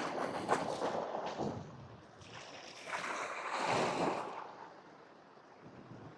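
Sea waves washing against the shore rocks in two surges that swell and fade, the second a couple of seconds after the first.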